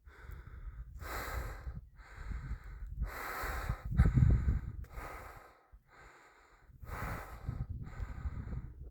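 A hiker breathing hard and steadily while walking: about eight loud, even breaths in and out, with a short pause a little past halfway, over a low rumble.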